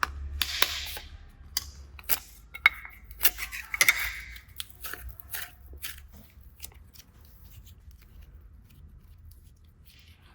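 A quick run of sharp clicks and crackles from something being handled, dense at first and thinning out after about six seconds.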